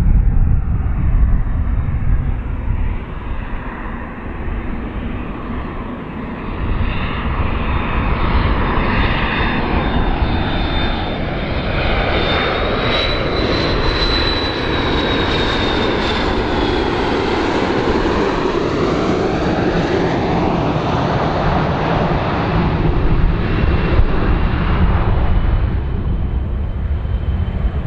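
McDonnell Douglas MD-82's two rear-mounted Pratt & Whitney JT8D turbofans on landing approach, passing close by: a steady jet roar with a high engine whine that climbs to a peak about halfway through and then falls away as the plane goes past.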